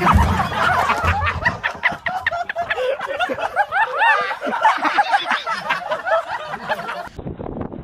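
Several people laughing hard and shrilly, with a couple of dull thumps in the first second as a plastic barrel tips over with a man inside.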